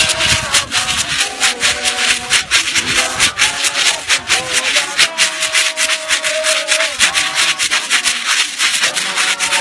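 Church choir singing while walking in procession, over a fast, steady rhythm of shaken rattles; the voices hold one long note about five seconds in.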